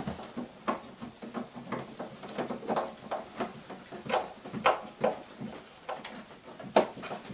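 Irregular small clicks, taps and scrapes of hand work with a screwdriver on the side of a tracked motor tug, with one sharper click near the end.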